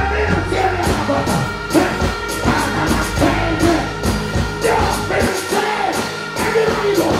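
Live dancehall performance over a stage sound system: a vocalist chats and sings into a microphone over a backing riddim with heavy bass and steady percussion. The bass drops out briefly about five seconds in.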